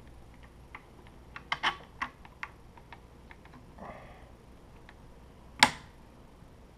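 Light, scattered clicks and taps of small hardware and tools being handled while screwing parts of a 3D printer kit together, with a short cluster of clicks early on and one louder sharp knock about five and a half seconds in.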